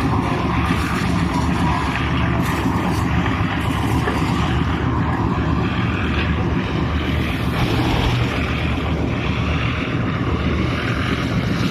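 Engine of concrete-pouring machinery running steadily, a continuous low drone with no let-up.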